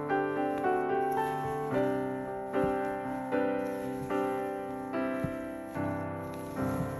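Background piano music, a slow melody of single notes struck roughly every second, each fading before the next.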